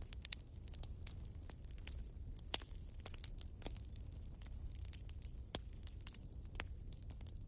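Wood logs burning in a fireplace, crackling with irregular sharp pops and snaps over a low steady rumble. One louder pop comes about two and a half seconds in.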